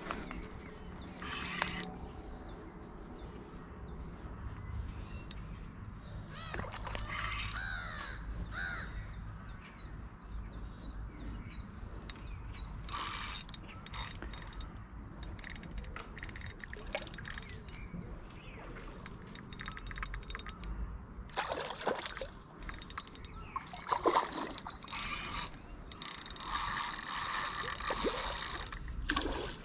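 Spinning reel clicking and ratcheting as line is worked, with a louder, longer rasping stretch near the end while a carp splashes at the surface.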